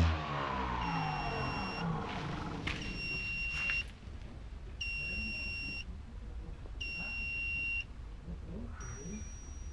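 Robotic lawn mower's motor stopping and winding down, then the mower beeping: one-second electronic beeps about every two seconds, with one higher-pitched beep near the end.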